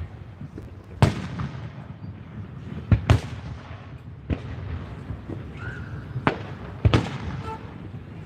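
Aerial fireworks shells bursting: about six sharp bangs, two in quick succession about three seconds in, each trailing off in a rolling echo over a low rumble.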